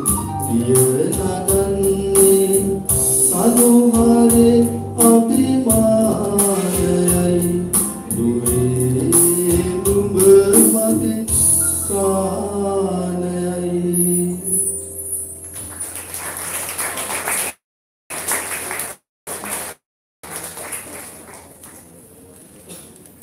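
A Sinhala song sung live with a steady percussion beat. It ends about two thirds of the way in and the sound fades to a low background, cut by a few brief audio dropouts.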